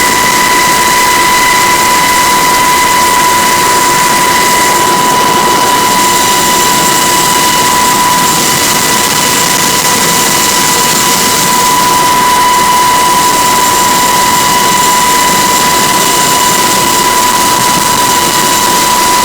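Cabin noise inside a UH-60 Black Hawk helicopter: the turbine engines and rotor system running, a loud steady roar with a constant high-pitched whine on top.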